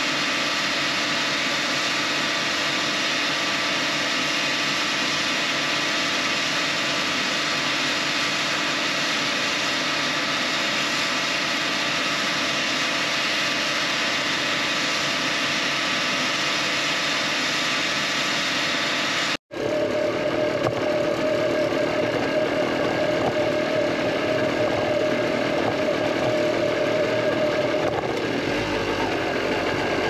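Tractor engine running steadily with the slurry tanker's pump, filling the tanker with dairy effluent through its suction hose. About two-thirds through it cuts off abruptly and is replaced by a different steady engine sound carrying a constant whine that fades near the end.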